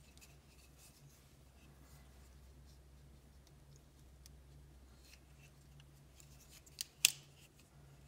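Stainless steel electrician's multi-tool being handled: faint metal clicks as its fold-out blades are closed into the handles, then a sharp metallic snap about seven seconds in as the handles swing round and the spring-loaded pliers open.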